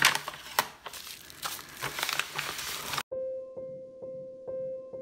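Glassine envelope and paper wrapping crinkling as they are handled and unwrapped, for about three seconds. Then it cuts off suddenly to piano music with one note repeated about twice a second.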